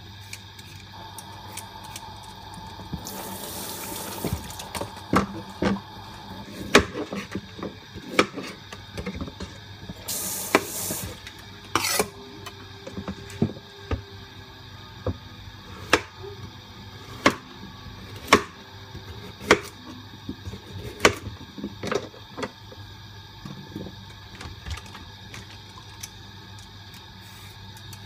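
Vegetables being peeled with a plastic Y-peeler over a cutting board: sharp clicks and taps about once a second through the middle, with two short rushes of running water near the start and about ten seconds in.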